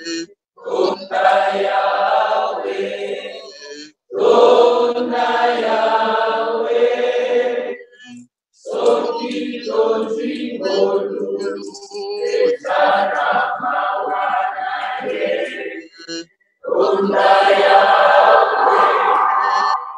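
A man singing a slow hymn unaccompanied, in about four long held phrases with short breaths between them.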